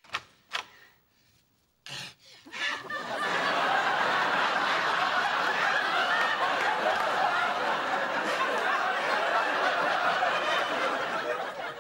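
Sitcom studio audience laughing, swelling about two and a half seconds in, holding steady, and dying away near the end, after a few short knocks in the first two seconds.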